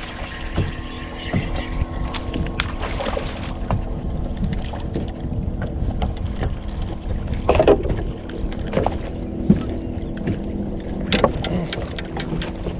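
Steady low hum and wind rumble on a bass boat, broken by a few sharp knocks and clatters on the deck, the loudest just past the middle and a quick run of clicks near the end.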